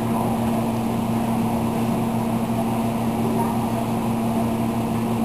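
A steady low machine hum with two constant tones under an even hiss. Nothing starts or stops.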